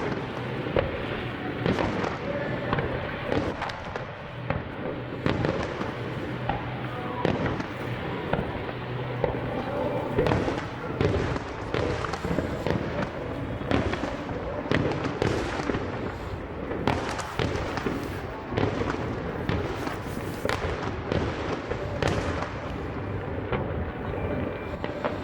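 Fireworks display going off in a dense, continuous barrage of sharp bangs and crackles, several per second and irregular, with no let-up.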